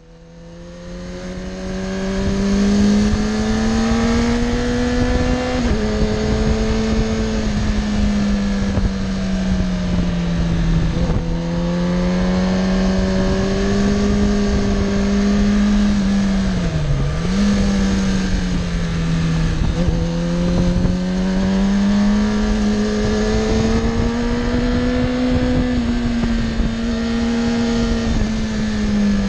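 Sport motorcycle engine pulling at steady mid revs along a twisty road. Its note rises and falls gently with the throttle and drops briefly about halfway through, over a steady rush of wind noise. The sound fades in over the first two seconds.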